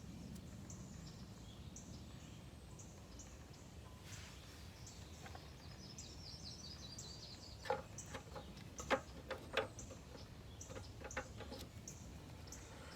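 Faint bird chirping over a low, steady background hiss. A few sharp clicks and knocks come about eight to ten seconds in, from handling the car's engine computer after reseating its chip.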